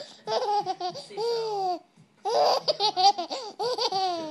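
Baby laughing in two bouts of short, rhythmic laughs, each ending in a longer note that falls in pitch, with a brief pause about two seconds in.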